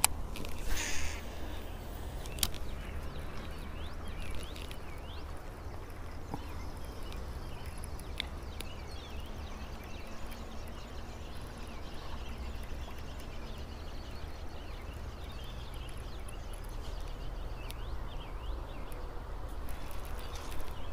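Outdoor riverbank ambience: a steady low rumble with faint birds chirping throughout. About a second in, a short hiss as line pays off a baitcasting reel on a cast.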